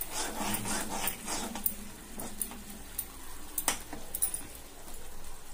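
A spoon stirring and scraping a sauce in a kadai (wok), with irregular clicks of the spoon against the pan over a light sizzle.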